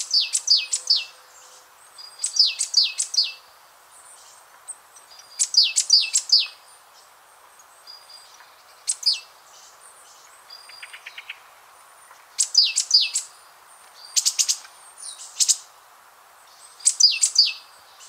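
A small songbird singing short phrases of a few quick, high, falling notes, repeated about every two to three seconds, with a softer fast trill a little past halfway, over a faint steady hiss.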